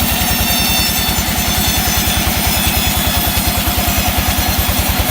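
Sawmill machinery running steadily, its engine giving a rapid, even low throb.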